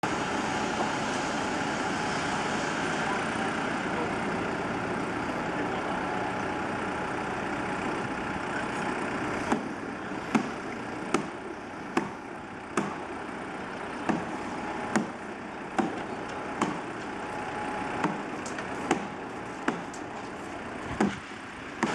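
Hammer strikes on the building site, sharp and regular at a little over one a second, begin about halfway through. Under them runs a steady hum of road traffic and machinery.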